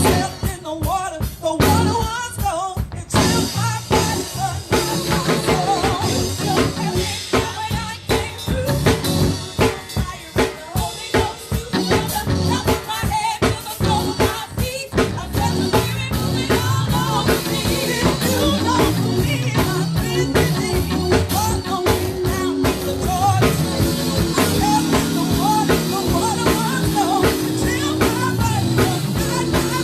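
Gospel praise and worship music: a live band with drum kit, snare and bass drum keeping a steady beat under sustained keyboard or bass notes, with singing.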